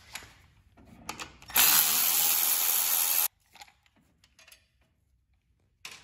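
A handheld power driver spinning a bolt out of the engine's sheet-metal shroud for about a second and a half, then stopping abruptly. Light clicks of tool and metal around it, and a short knock near the end.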